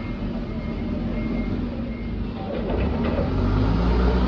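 Forklift engine running steadily, growing louder about three seconds in.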